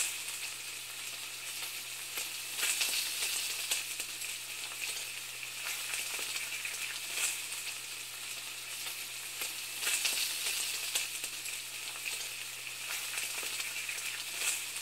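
Food sizzling and crackling in hot fat, a steady hiss with louder surges about three, ten and fourteen seconds in, over a faint low hum.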